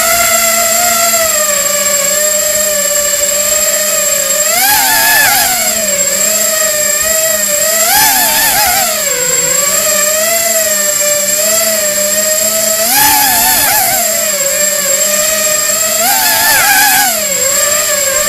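Small remote-controlled multirotor's electric motors and propellers whining steadily, the pitch surging up and back down four times, about five, eight, thirteen and sixteen seconds in, as the throttle is pushed.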